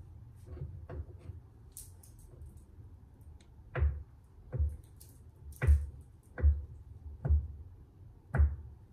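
Kitchen knife chopping hard cheese on a wooden cutting board: a series of knocks as the blade hits the board, light at first, then six sharper strokes about a second apart from about four seconds in.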